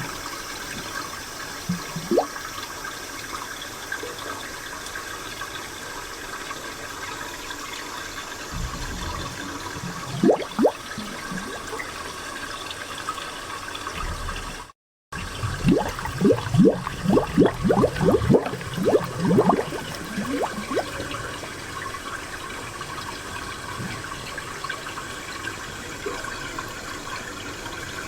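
Spring water running steadily, with bursts of gurgling plops: a couple early, a few about ten seconds in, and a quick run after a brief dropout about halfway through.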